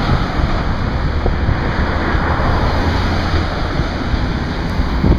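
Steady wash of road traffic on a multi-lane street as cars drive past, with wind rumbling on the microphone.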